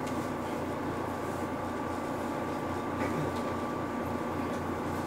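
Steady hum of a 413 series electric train standing with its equipment running, with a thin constant tone above a low throb and no rising motor whine.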